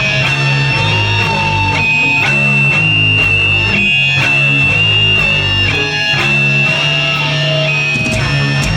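Live metal band playing an instrumental passage: heavy electric guitar and bass chords held and changing every second or so, under regular cymbal hits and a steady high ringing tone.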